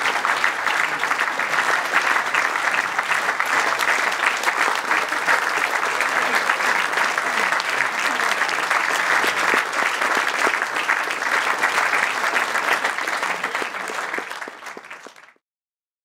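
An audience applauding steadily, many hands clapping at once, fading out near the end and then cutting off to silence.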